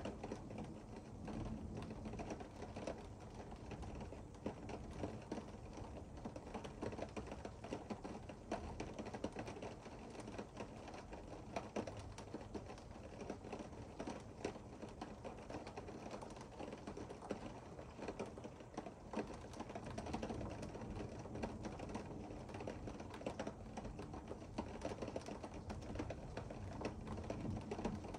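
Rain pattering steadily, a dense run of small taps and ticks.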